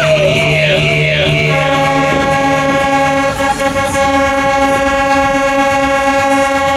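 A long, steady horn-like chord played over a fairground ride's sound system, coming in about a second and a half in and cutting off suddenly at the end. Before it, a wavering siren-like tone rises and falls about twice a second.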